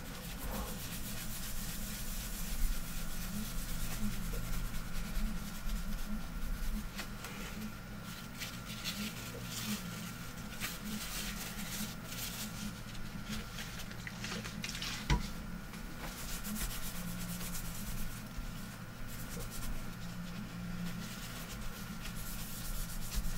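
Paper tissue rubbing back and forth on a metal heatsink plate, wiping off old thermal paste in repeated scrubbing strokes. A single sharp knock comes about two-thirds of the way through.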